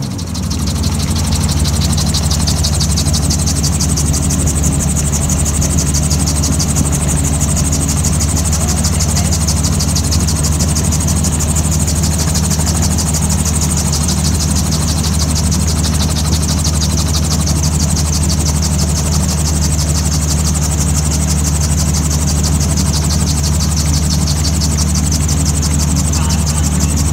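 Gyroplane engine running steadily with the throttle pulled back for a practice forced-landing glide, with rotor and airflow noise, heard from the cockpit: a constant low drone under a high hiss with a fast flutter in it.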